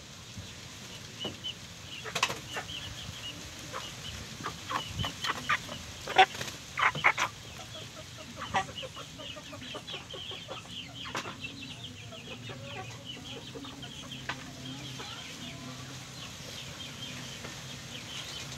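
Chickens clucking, with a cluster of sharp knocks and scuffles, loudest about six to seven seconds in.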